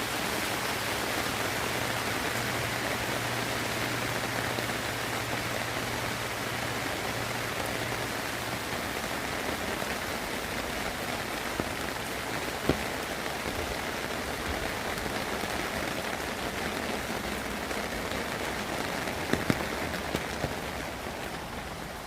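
Steady heavy rain falling, an even hiss of drops on the ground and plants, with a few sharp taps about midway and near the end.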